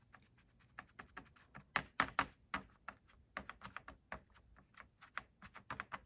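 Foam sponge brush dabbing black paint onto a thin laser-cut birch wood panel lying in an aluminium foil pan: quick, irregular light taps and clicks, several a second.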